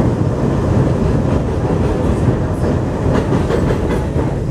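New York subway car of the #7 Flushing Line train running along elevated track, heard from inside the rear car: a steady rumble of wheels on rail. In the second half a quick run of clicks comes as the wheels pass over rail joints and switches.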